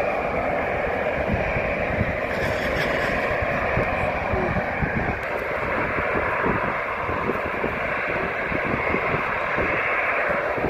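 Twin-engine jet airliners taxiing, their engines running at low power in a steady roar over an uneven low rumble.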